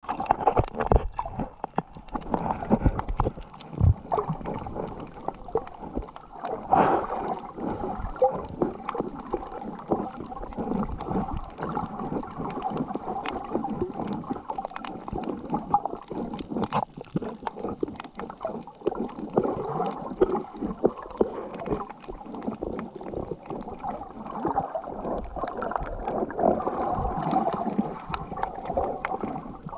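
Muffled underwater sound heard through a camera's waterproof housing: water moving and gurgling, with scattered clicks and crackles throughout.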